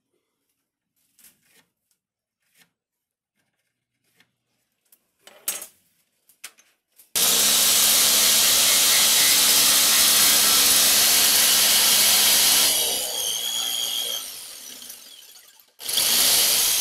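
A few faint knocks and taps of handling, then an electric jigsaw starts about seven seconds in and cuts through a pine board, running steadily for several seconds before tailing off, and starts cutting again just before the end.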